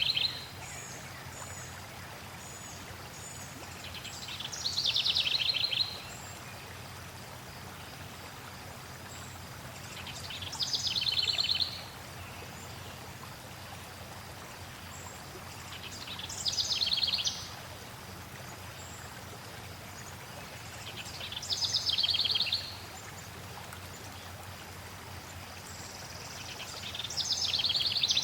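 A songbird repeating the same trilled song phrase about every six seconds, each phrase growing louder for a second or so and then stopping abruptly, over a steady wash of flowing water.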